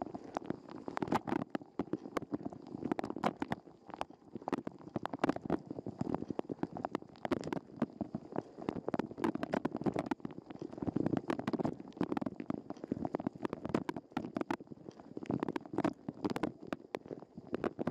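Dishwasher wash cycle heard from inside the machine through a waterproof camera housing: water jets spray and splash against the housing and dishes in dense, irregular patters that come and go in surges.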